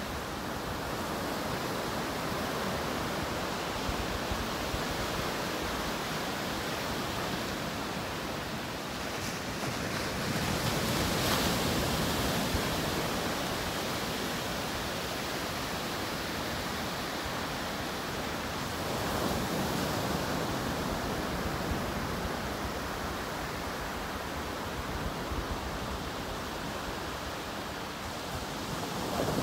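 Ocean surf breaking and washing up the beach in a steady rush. It swells louder about ten seconds in and again about twenty seconds in.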